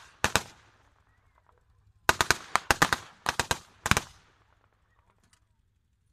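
Automatic weapons firing blanks in short bursts of three or four rapid shots: one burst just after the start, then four bursts in quick succession from about two to four seconds in.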